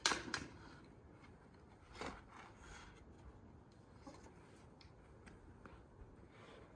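Cooked flatbreads and a long wooden stick being handled on a cloth-covered tray: soft scrapes and rustles, sharpest at the start, with another scrape about two seconds in, then a few faint clicks.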